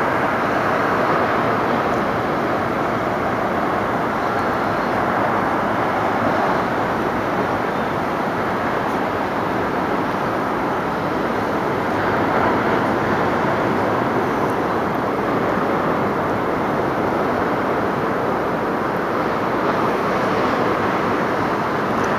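Steady, even outdoor roar of surf breaking on the beach and road traffic, heard from high above a beachfront street.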